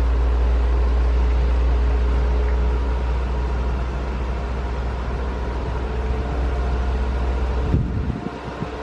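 Large diesel engine running steadily, with a deep rumble and a faint even hum above it; the rumble drops away abruptly near the end.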